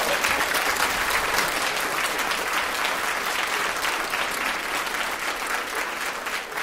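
Live audience applauding at the end of a spoken comic story: dense, steady clapping that begins to ease off near the end.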